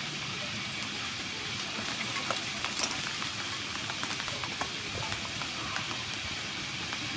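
Julienne peeler scraping along a fresh cucumber, a run of short crisp cutting clicks as strips come off, over a steady hiss of background noise.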